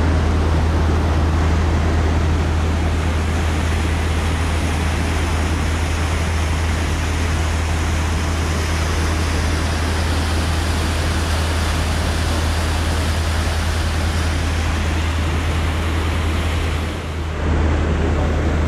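Harbour ferry's engine running with a steady low hum, under the rush of the propeller wash churning the wake at the stern. The sound dips briefly near the end.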